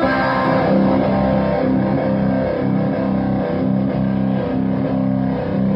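Electric guitar played through a fuzz pedal and a JHS Unicorn uni-vibe, held notes throbbing with the vibe's regular pulse. The fuzz adds just a little noise.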